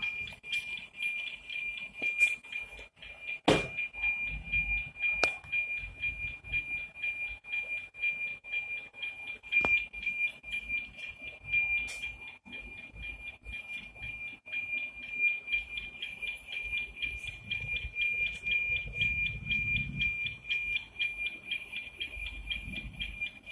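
NOAA 19 weather-satellite APT signal demodulated by the SDR receiver: a steady high tone near 2.4 kHz pulsing in a fast, even beat, the tick-tock of the image lines being received. A few sharp clicks cut through it, the loudest about three and a half seconds in.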